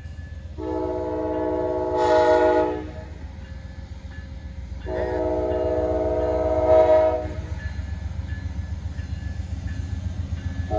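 Amtrak P42DC diesel locomotive's multi-chime air horn blowing two long blasts of about two and a half seconds each, with a third starting at the very end, over the steady low rumble of the locomotive and train rolling by: a grade-crossing horn signal. The railfan takes the horn for some sort of K5LA.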